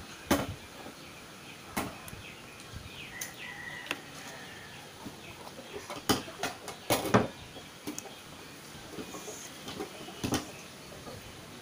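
About five scattered sharp clicks and knocks, with a short faint bird call about three seconds in.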